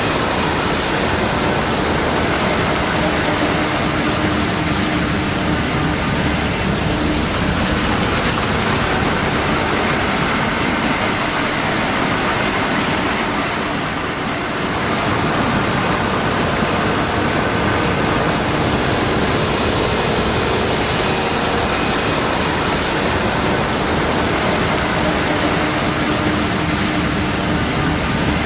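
John Deere X9 1100 combine harvesting corn with a 16-row C16F corn head: a steady din of engine and threshing machinery, easing briefly about halfway through.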